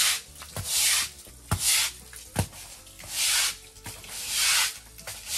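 Broom scrubbing a wet pigsty floor in repeated scratchy strokes, about one a second, with a couple of dull knocks in the middle.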